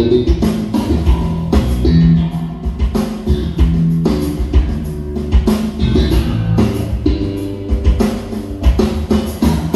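Recorded music with drum kit, bass and guitar and a steady beat, played through a Fane loudspeaker driven by an RDW NR10004MK3 power amplifier as a sound test of the amplifier.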